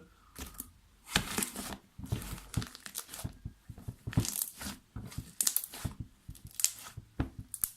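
Hands stretching and squeezing slime, giving off irregular crackling pops as air bubbles trapped in it burst.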